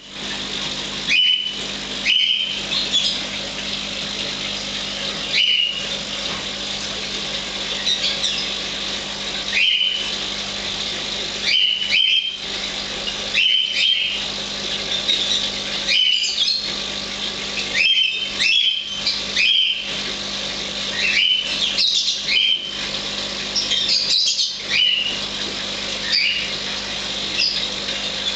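A small caged bird chirping over and over, short rising chirps every second or two, over a steady low hum.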